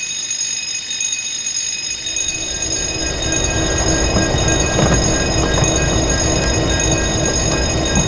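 Railroad crossing warning signal sounding a steady, high electronic tone. A train comes in under it from about two seconds in, its rumble building and staying loud as it passes.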